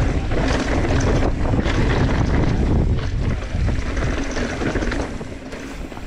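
YT Capra mountain bike riding fast down a rocky dirt trail: wind rushing over the microphone with tyre noise and frequent knocks and rattles from the bike over rocks and bumps, easing off a little near the end.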